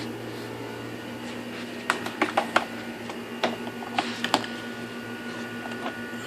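Sharp plastic clicks and knocks from handling a vacuum cleaner's housing and cord, about eight of them bunched between two and four and a half seconds in, over a steady low hum.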